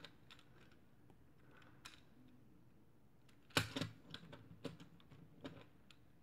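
Plastic pieces of a Meffert's Gear Ball puzzle clicking as its faces are twisted: scattered light clicks, with a sharper cluster a little past halfway.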